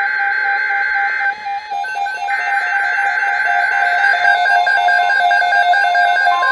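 Weather radios sounding their alert signals: overlapping steady electronic beeping tones, with two raspy buzzing data bursts in the first few seconds, the coded header that comes before a new warning.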